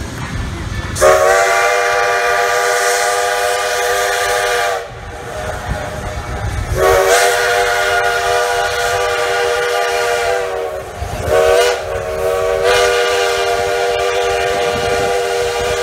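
Steam locomotive's chime whistle blowing the grade-crossing signal: two long blasts, one short, then a final long blast. Each blast is a steady chord of several notes that sags slightly in pitch as it ends.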